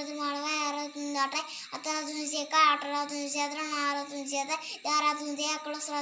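A little girl reciting rapidly in a sing-song, chant-like voice held at a nearly level pitch, pausing briefly for breath twice.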